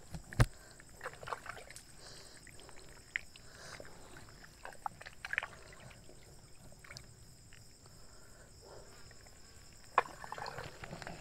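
Faint scattered splashes and knocks of shallow water, twigs and roots disturbed by someone wading, over a steady high insect trill of a night-time river bank.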